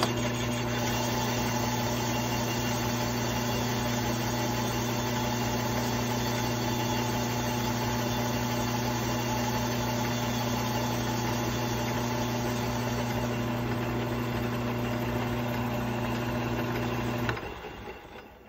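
Metal lathe running at a steady speed with a steady hum, a boring bar cutting the squish band into a Husqvarna 288 chainsaw cylinder. The lathe is switched off about 17 seconds in and spins down.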